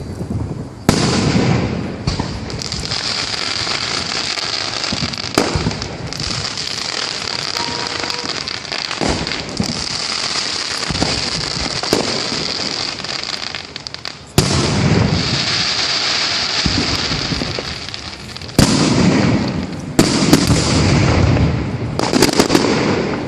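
Fireworks display: aerial shells bursting with sharp bangs every few seconds, about seven in all, over a continuous dense crackle of small pops.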